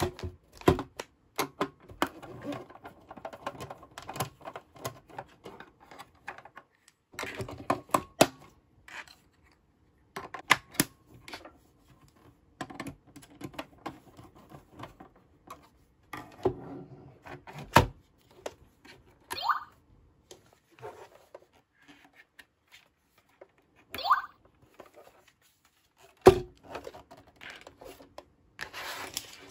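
Hard plastic parts of a Licca-chan toy kitchen being handled and pushed together: irregular clicks, taps and knocks in quick clusters with pauses between, and a couple of brief squeaks from plastic rubbing.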